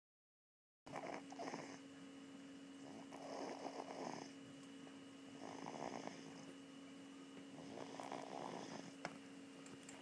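Slow, rhythmic snoring: about four snores, one every two and a half seconds or so, beginning about a second in, over a steady faint hum.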